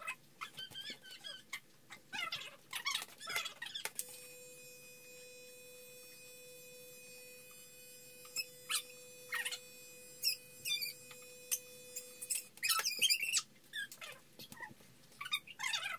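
Corded electric hair clippers switched on about four seconds in, humming steadily through a haircut, then switched off about twelve seconds in. Around them, a baby squeals and babbles in short, high, squeaky bursts.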